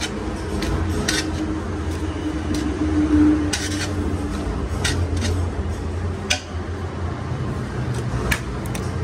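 Kitchen clatter: metal pots and utensils clinking and knocking now and then over a steady low hum.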